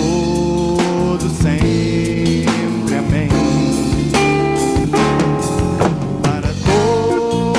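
A live Christian worship band plays, with a drum kit keeping a steady beat and guitars under long held notes.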